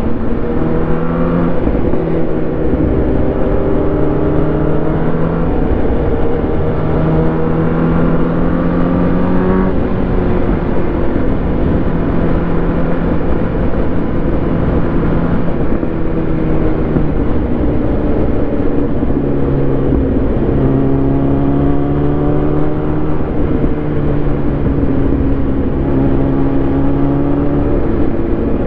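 Superbike engine running at road speed under a steady rush of wind noise, its engine note rising slowly and dropping back a few times.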